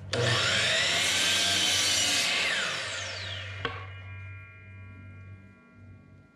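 DeWalt sliding compound miter saw starting and cutting through a small oak pole for about two and a half seconds, then winding down with a falling whine. A sharp knock comes near four seconds in, and a faint ringing hangs on after it.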